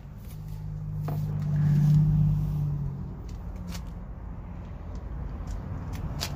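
A low motor hum builds over the first two seconds and fades out by about three seconds in. Scattered light clicks and rustles follow.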